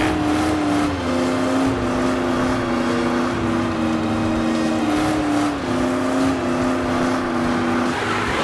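Cartoon van revving its engine with its tyres spinning in a smoky burnout, over background music of long held notes.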